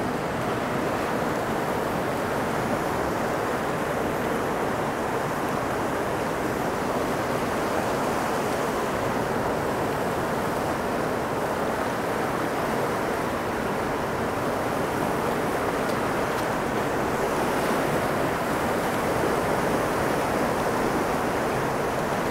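Fast river current rushing over and around rocks: a steady, unbroken rush of moving water.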